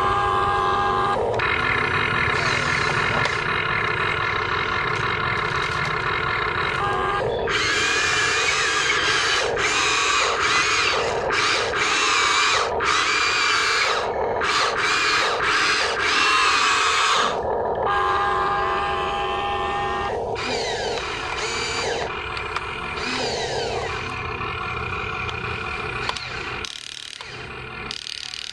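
Huina RC excavator's electric motors whining as the arm, bucket and tracks work. The pitch shifts up and down, and the whine changes character every few seconds as different functions start and stop.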